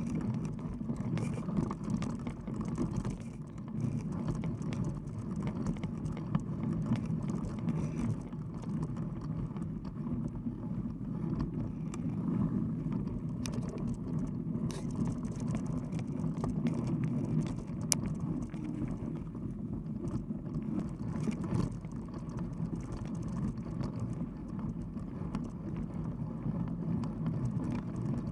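Mountain bike rolling along a dirt trail: a steady low rumble from the tyre on the ground and the bike, with a few sharp clicks and knocks over bumps.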